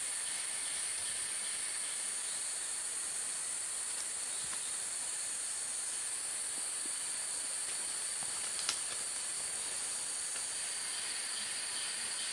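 Steady, high-pitched drone of a forest insect chorus, with one brief click near the middle.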